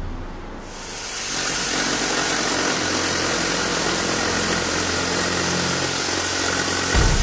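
Würth cordless jigsaw running steadily, its blade sawing through a high-density EPS foam profile. It starts about a second in and stops near the end.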